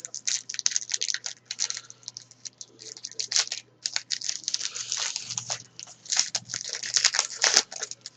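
Trading card pack and cards being handled: a run of quick, irregular crinkling and clicking as the wrapper is worked open and the cards are slid out.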